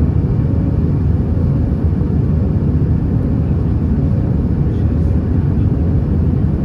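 Steady cabin noise of an Airbus A320 in flight, heard from inside the passenger cabin: a deep, even rumble of engines and airflow with a faint steady hum above it.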